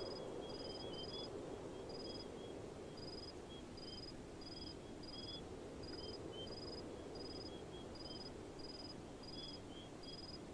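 Night-time ambience of crickets chirping in short, evenly spaced trills, about three every two seconds, with fainter, lower chirps between them over a steady low hiss.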